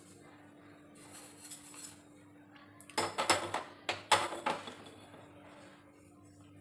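Small aluminium pan being set down on the gas stove's metal burner grate: a light scrape about a second in, then several quick metal knocks and clatters around three to four seconds in, over a faint steady hum.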